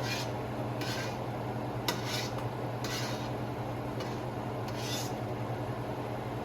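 A metal ladle or spoon scraping and knocking in a pot as soup is dished out: several short scrapes about a second apart, with one sharp clink, over a steady low hum.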